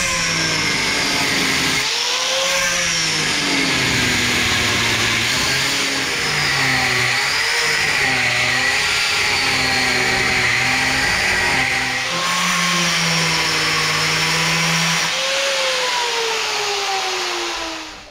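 Angle grinder with a thin cutting disc cutting through a fibre-cement floor sheet: a loud, steady grinding with a motor whine that dips and recovers as the disc bites into the sheet. Near the end the whine falls in pitch and dies away as the grinder winds down.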